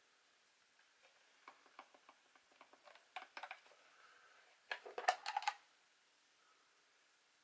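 Light plastic clicks and taps from a pistol-grip RC transmitter being handled, followed about five seconds in by a louder quick cluster of clicks and rattles as the battery compartment cover comes off.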